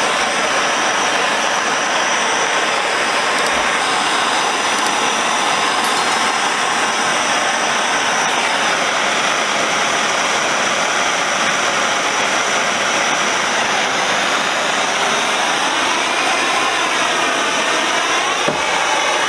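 Handheld gas torch burning with a steady, loud hiss while heating a steel vise part before it is quenched in oil.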